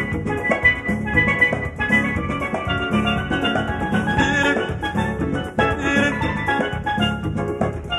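Steel pan playing a fast instrumental solo of quickly struck ringing notes, over a live band's bass and drum beat.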